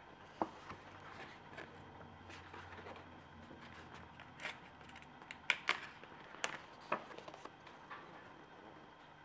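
Hands handling a printed booklet and a cardboard box: faint paper rustling with several sharp clicks and taps, most of them in the second half.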